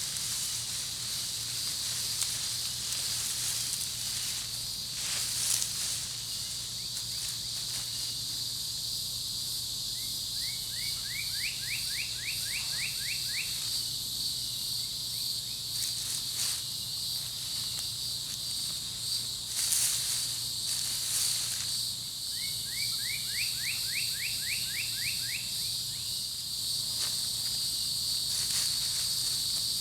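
Steady high drone of insects, with intermittent rustling as mulch is moved by hand. Twice a bird sings a quick series of about ten short rising notes.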